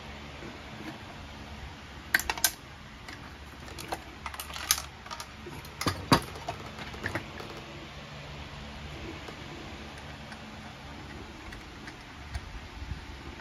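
Sharp clicks and knocks from handling a turbine motor assembly in its sheet-metal cabinet: a couple of taps about two seconds in, a busier cluster from about four to seven seconds, and a few softer knocks near the end.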